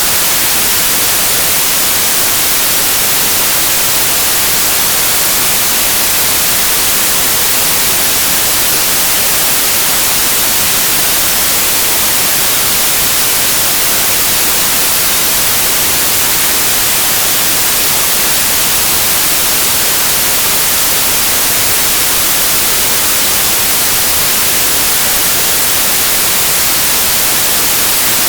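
Steady, loud white noise: an even hiss that does not change.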